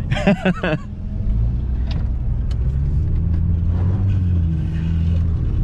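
Ford FG Falcon's engine heard from inside the cabin, running under throttle. About a second in it picks up and grows louder, then holds a steady droning note.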